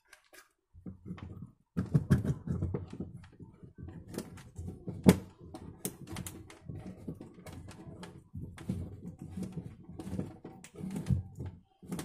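Irregular plastic clicks, knocks and rubbing as the parts of an LG washing machine's drain valve, the rubber valve and its spring, are pushed back into the drain outlet by hand. One sharp knock about five seconds in stands out.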